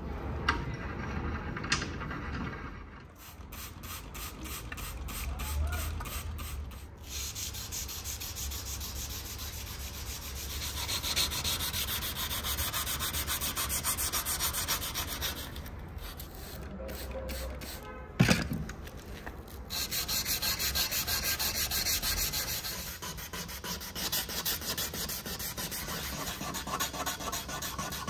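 A steel knife blade being sanded by hand with sandpaper, a rhythmic rasp of quick back-and-forth strokes in several runs with short pauses between them. One sharp knock about two-thirds of the way through.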